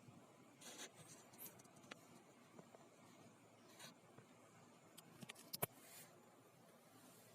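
Near silence in a small room, broken by faint scattered scratchy rustles and a few short sharp clicks, the sharpest a quick cluster of clicks about five and a half seconds in.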